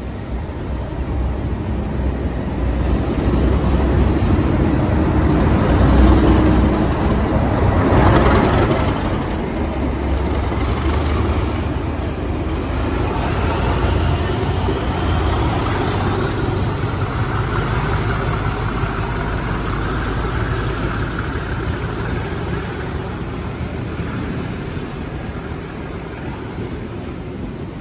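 Class 37 diesel locomotive 37607, with an English Electric V12 engine, passes through the station, loudest about six to eight seconds in as it goes by, followed by the steady rolling noise of the train's coaches on the rails, slowly fading. A thin high whine rises slowly in pitch while the coaches pass.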